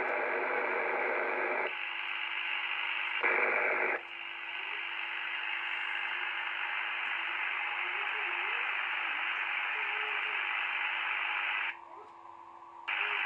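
Receiver hiss and band noise from an Icom IC-725 HF transceiver's speaker as it is switched between bands and modes. The hiss changes in pitch and loudness with each switch. A steady low tone and faint wavering signals come in about four seconds in. Near the end the hiss drops sharply for about a second as the narrow CW filter is selected.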